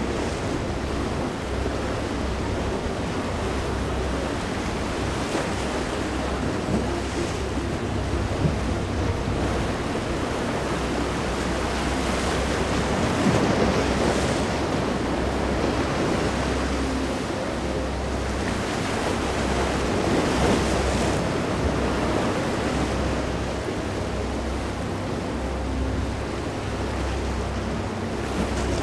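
Rough sea surf, with waves breaking and washing continuously and wind buffeting the microphone. The wash swells louder about halfway through and again a little later.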